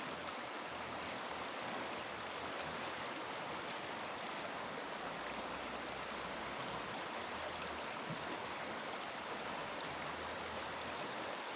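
Irshavka River water rushing steadily, with a faint click about a second in.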